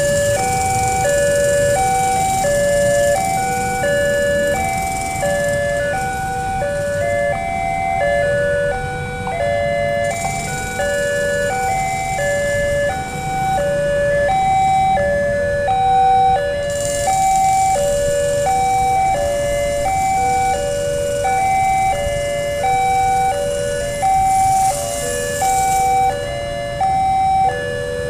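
Railway level crossing alarm playing an electronic chime: a short tune of steady notes repeated over and over without change. Road traffic runs underneath.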